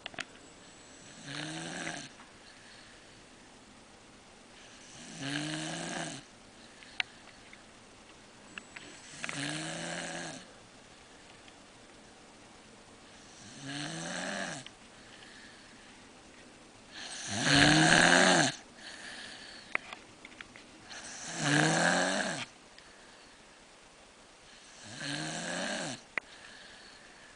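Snoring: seven snores, about one every four seconds, each a rasping snore that bends in pitch. The fifth and sixth snores are the loudest.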